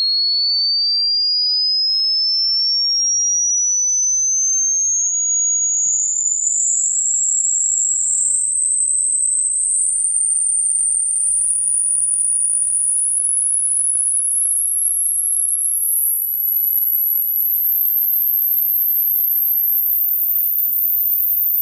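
A single pure sine test tone rising in pitch from a high whistle toward the top of the hearing range, smoothly at first and then in small steps from about five seconds in. It is a hearing-age test sweep: the point where a listener stops hearing it marks their hearing age.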